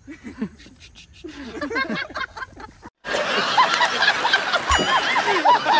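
Giggling and laughter in short bursts. About three seconds in, it cuts abruptly to a louder, noisy stretch with a wavering high voice or tune over it.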